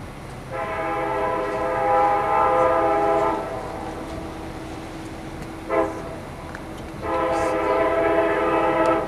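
Locomotive air horn of the CSX SD70MAC leading a southbound freight, sounding for a grade crossing. A long blast that gets louder about two seconds in, a short toot just before six seconds, then another long blast that is still going at the end: the long-long-short-long crossing warning.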